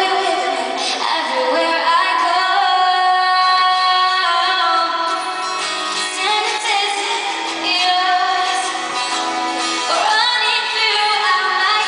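A woman singing a pop ballad live, holding long sustained notes that slide between pitches, over instrumental accompaniment.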